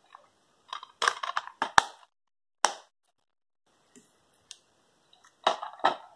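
Hands handling a plastic DVD case: a quick flurry of clicks and rattles as the case is snapped shut, a single knock a second later, then another burst of plastic clatter near the end as the case and its cardboard slipcase are handled.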